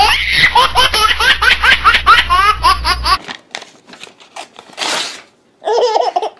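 A baby laughing hard in quick repeated squeals for about three seconds. After a cut, a sheet of paper is torn once, briefly, and another baby bursts out laughing at it.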